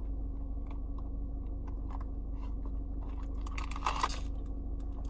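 Plastic toy packaging handled with small clicks, then crinkling and tearing open from about three seconds in, over a steady low hum.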